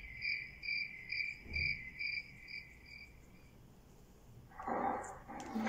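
Crickets chirping at night, a steady high chirp about twice a second that fades out about three seconds in. Near the end a rushing noise sets in.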